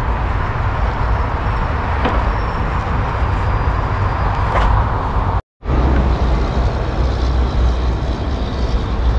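Wind buffeting the microphone outdoors: a steady, loud rush with a heavy low rumble, with a couple of faint clicks. The sound drops out completely for a moment about halfway through.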